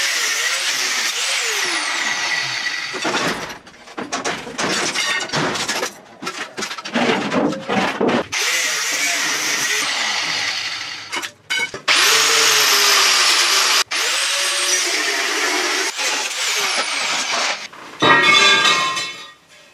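Angle grinder cutting rusty steel in several long runs, with a steady high whine, spinning up at the start of a run and winding down between cuts. Near the end, a short clatter of sheet steel.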